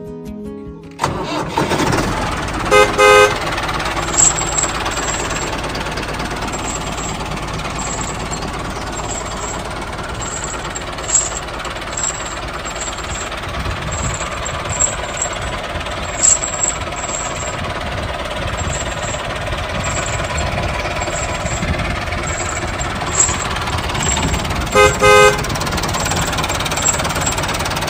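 A mini construction vehicle's motor running steadily, starting about a second in, with a horn giving two short beeps about three seconds in and two more near the end.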